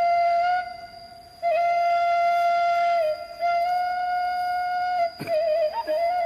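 Suling, a Sundanese bamboo flute, playing long held notes with small ornamental turns between them, with a brief pause about a second in.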